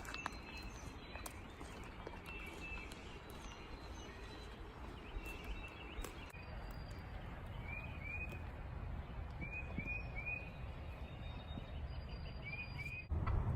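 Small birds chirping outdoors: short upswept chirps in twos and threes and a few thin high whistles, over a steady low rumble. Near the end a louder low rumble starts suddenly.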